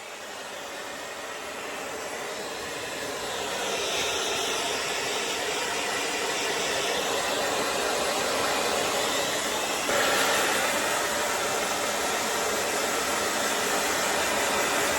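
Handheld hair dryer blowing steadily. It grows louder over the first few seconds and steps up a notch about ten seconds in.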